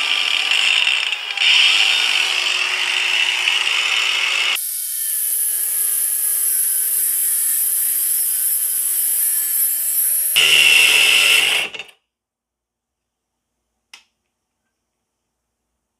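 Cordless brushless 125 mm angle grinder with a cutting disc running at maximum speed through 1-inch steel shafting: harsh grinding, then from about a third of the way a higher whine whose pitch slowly sinks, and a last loud burst of cutting. It cuts out abruptly about 12 seconds in, which the owner first takes for a flat battery and later for a heat safety cutoff; a single click follows a couple of seconds later.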